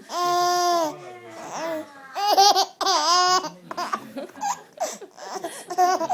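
A baby laughing out loud: a long high squeal, then a run of shorter, bouncing laughs.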